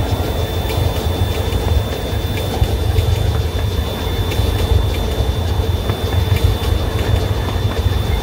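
The Melody Ranch Special Daylight train running along the track: a steady low rumble with faint, irregular clicks of the wheels over the rail, and a thin, steady high tone.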